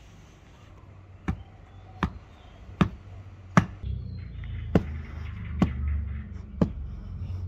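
Seven sharp strikes in a steady rhythm, about one every three-quarters of a second. A low rumble rises underneath from about halfway through.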